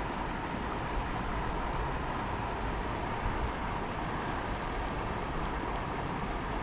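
Steady rushing of shallow creek rapids.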